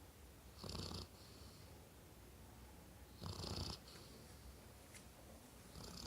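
A Labrador retriever snoring in her sleep: three snores, each about half a second long, coming about two and a half seconds apart.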